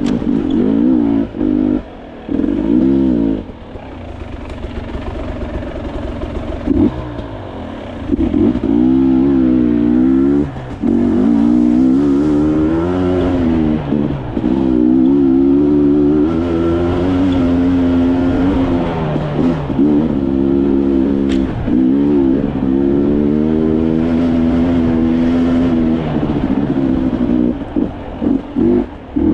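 Off-road motorcycle engine revving hard and easing off over and over as the throttle is worked on a trail, with short drops in between and a quieter stretch about four seconds in before the revs climb again.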